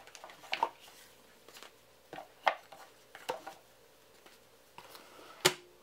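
Cardboard board-game pieces and cards being handled and lifted out of their box: scattered light taps and clicks, the sharpest about five and a half seconds in.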